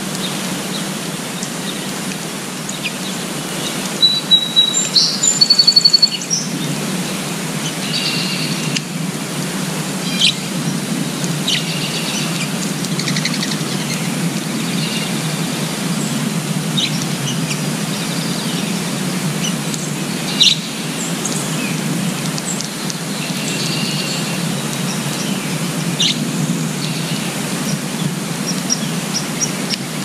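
Small songbirds chirping and calling on and off over a steady outdoor background hiss, with a loud rapid run of high chirps about four seconds in.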